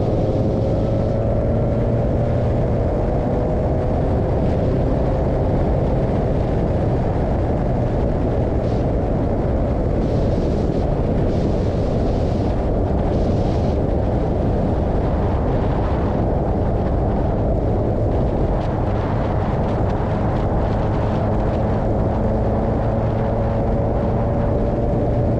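Onboard sound of a Formula 2000 single-seater race car at speed: the engine running hard under a heavy rush of wind and road noise. The engine pitch climbs slowly in the first few seconds and again near the end.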